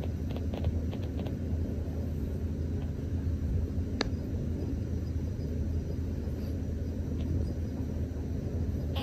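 Steady low rumble, with one faint click about four seconds in.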